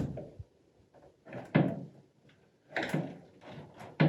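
Two wooden knocks as a heavy window is shifted and bumped against its frame opening, about a second and a half in and again near three seconds.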